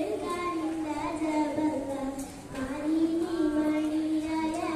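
A young girl singing a Mappila song solo into a microphone, holding long gliding notes, with a short breath about halfway through.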